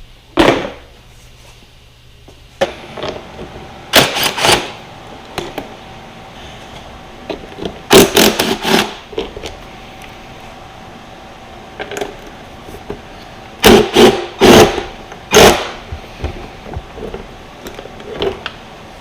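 Irregular clatter and knocks of hand tools and parts being handled while a dirt bike is disassembled, the loudest clusters about 4, 8 and 14 seconds in, over a faint steady hum.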